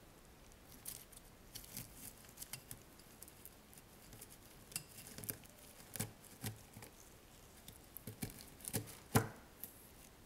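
Faint, irregular clicks and crackles as a plant stake is pushed down into a pot of coarse chunky potting mix and the pieces shift against each other, with the loudest crack about nine seconds in.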